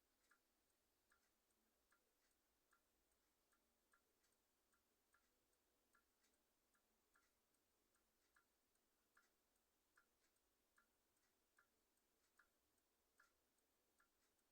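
Swiss clock movement ticking faintly and steadily, with evenly spaced ticks a few times a second.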